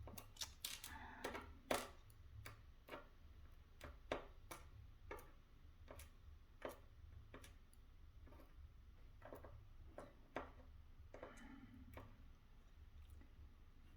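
Irregular light clicks and taps, one or two a second, from the small metal parts and tools of a BiLock NG lock core being handled during disassembly, with a brief rattle about a second in and another near the end.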